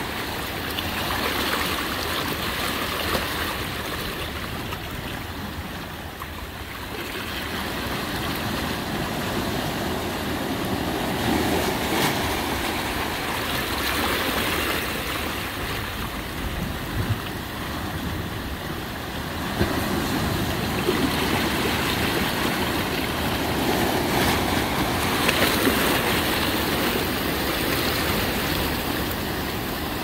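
Ocean waves breaking and washing up a beach, a steady rush of surf that swells and eases roughly every ten seconds, picked up by earbud microphones.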